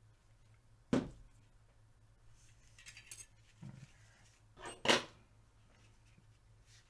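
Metal parts of a Tec-9 pistol being handled on a work surface: a sharp knock about a second in, light clinks and scraping, then a louder clatter near five seconds.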